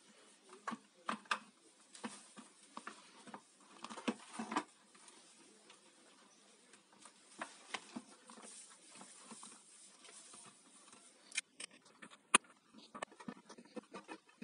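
Hands handling and fitting the plastic base cover of an electric hob: scattered light knocks, taps and rubbing of plastic, with a few sharp clicks near the end.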